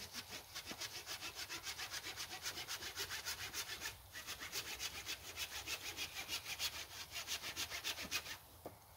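Hand saw cutting through a log in quick, even back-and-forth strokes, with a short pause about four seconds in; the sawing stops near the end.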